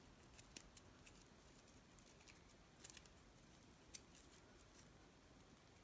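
Near silence, broken by faint, scattered ticks and rustles of paper yarn cord being twisted between the fingers, the clearest about half a second in and around three and four seconds in.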